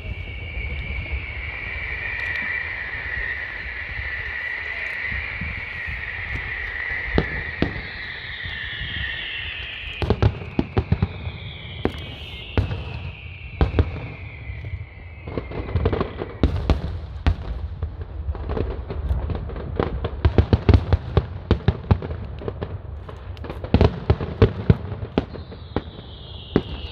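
Fireworks show: a high whistle over the first several seconds, then from about ten seconds in a dense run of bangs and crackling bursts, with long falling whistles sliding down in pitch over them.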